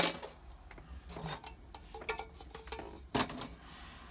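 Metal clinks and knocks from a brass gasoline pressure stove being handled and set down on a steel countertop. A sharp knock comes at the start, a few lighter clinks follow, and another sharp knock comes about three seconds in.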